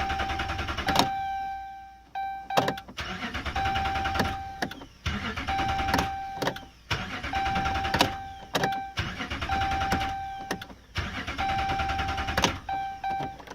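Ram 2500's 5.7 Hemi V8 cranked by its starter in about six short tries of a second or two each, never catching: a no-start. Sharp clicks fall between some of the tries, and a steady high tone sounds through much of it.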